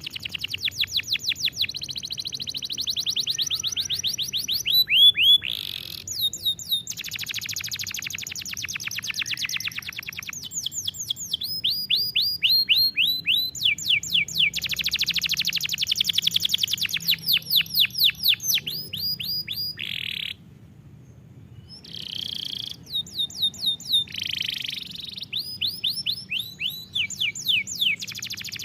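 Domestic canary singing a long song of fast trills and rows of quickly repeated, downward-sweeping notes, changing from one phrase to the next, with a short pause about two-thirds of the way through.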